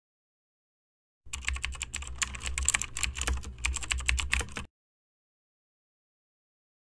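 Fast typing on a computer keyboard: a quick, irregular run of key clicks over a low hum, starting about a second in and cutting off abruptly after about three and a half seconds.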